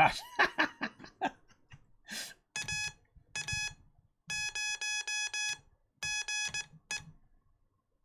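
A man laughs briefly, then Morse code practice tones sound: a steady, buzzy tone switched on and off in dashes and dots, sending an amateur radio call sign.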